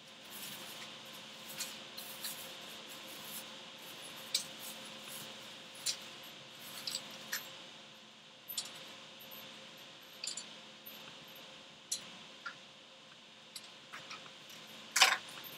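Computer mouse clicks, single clicks every second or two, with the loudest one near the end, over a faint steady hum.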